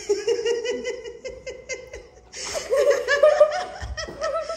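Young girls giggling with laughter in quick repeated pulses, louder and fuller from about two seconds in.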